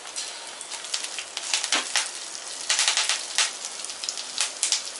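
Fresh curry leaves spluttering in hot oil: a sizzle full of sharp pops and crackles, thickest from about one and a half to three and a half seconds in.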